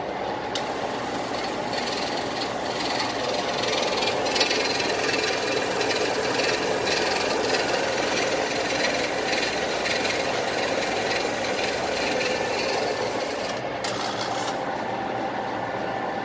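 Cincinnati mechanical squaring shear running idle, a steady mechanical run with no cutting stroke.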